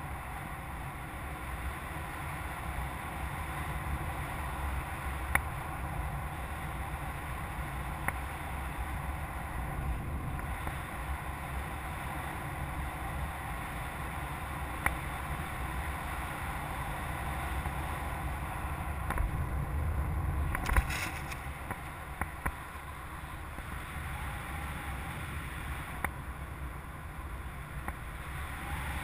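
Airflow buffeting the microphone of a camera on a hang glider in tow flight: a steady low rumble with scattered sharp ticks. A short clatter about two-thirds of the way through is the loudest moment.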